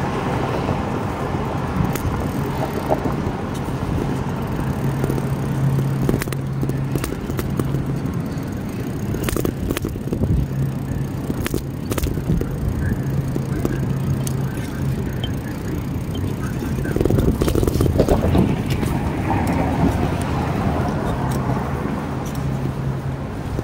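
Street traffic and road noise heard while riding a bicycle through a city: a steady rumble of passing cars, with a low hum that comes and goes and scattered clicks.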